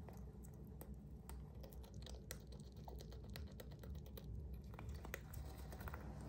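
A hamster's claws scratching and tapping at a painted wall: a scatter of small, irregular clicks over a faint low hum.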